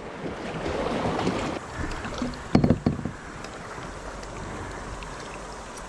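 Steady rush and splash of river water around a kayak on the move, with a couple of short thumps about two and a half seconds in.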